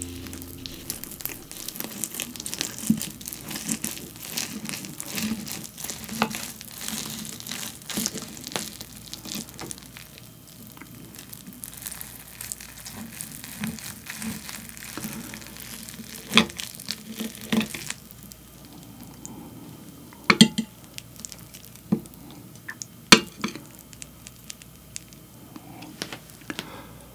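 Steel knife and fork cutting through a cheese-topped egg rice dome: a soft, crackly squish of moist rice and melted cheese parting under the blade. In the second half, several sharp clinks ring out as the cutlery strikes the ceramic plate.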